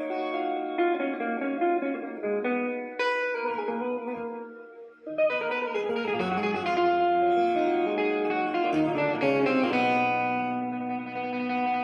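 Background instrumental music with a plucked string melody. It thins out briefly about five seconds in, then comes back fuller.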